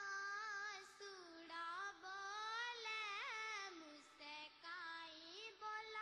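A high solo voice singing a slow melody, with long held notes, glides between pitches and short breaths between phrases.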